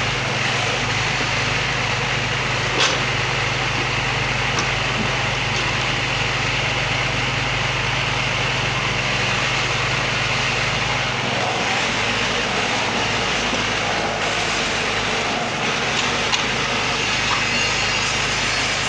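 Backhoe diesel engine running steadily, its low note shifting a little past halfway through, with a sharp knock about three seconds in.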